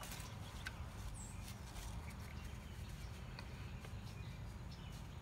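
Faint handling noise of paracord being wrapped around a pencil jig: light scattered taps and rustles over a low steady rumble.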